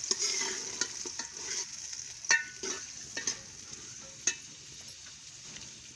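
Onions and chillies frying in hot ghee in a pot, with a steady sizzle, while a spoon stirs them and knocks sharply against the pot, loudest about two seconds in and again about four seconds in.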